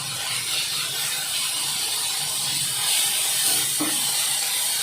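Onion, grated beetroot and carrot sautéing in oil in a pan, a steady sizzling hiss as the vegetables are stirred, with a couple of soft knocks about three and a half seconds in.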